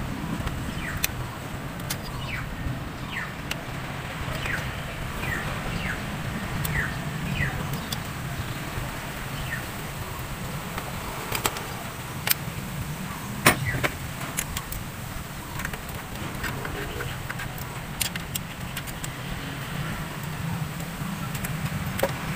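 Scattered clicks and knocks of hands working parts loose on top of a car engine, over a steady low hum, with short chirps in the first several seconds.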